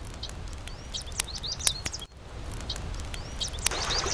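Small birds chirping, with short sharp clicks among the calls. Near the end, the hiss of rushing stream water sets in under the birdsong.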